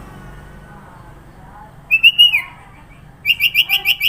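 Sooty-headed bulbul (kutilang) singing: a short whistled phrase that falls at the end about two seconds in, then a fast run of about eight sharp, clear notes near the end.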